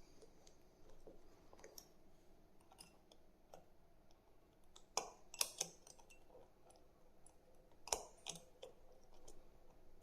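Faint, scattered small clicks and taps of tools and button-cell batteries on a watch's plastic battery module as the batteries are taken out. A few sharper clicks come about five seconds in and again near eight seconds.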